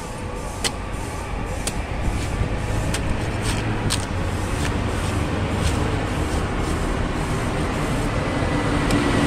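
Machete chops trimming the husk off a young green coconut: a sharp chop every half second to a second, over steady street traffic noise that grows louder near the end.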